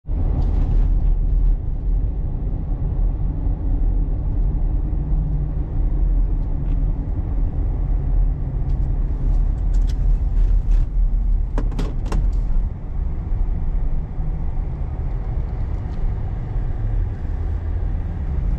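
Pickup truck driving on a snow-covered road, heard inside the cab: a steady low rumble of tyres and engine. A few light clicks come in the middle.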